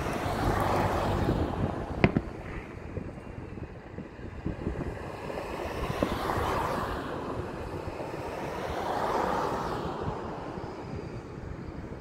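Traffic passing close by in swells of tyre and engine noise that rise and fade several times, with a single sharp distant firework bang about two seconds in.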